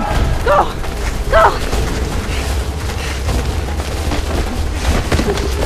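Deep rumbling boom under a rushing noise, a film sound effect. Two short vocal cries come at about half a second and one and a half seconds in.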